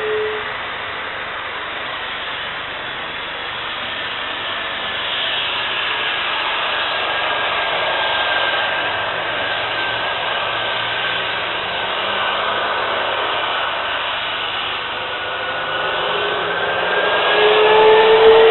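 The four jet engines of a Boeing 747-400F running as it rolls slowly on the runway: a steady rushing noise with slowly gliding whine tones. Near the end the engines grow louder and a lower tone rises as they spool up.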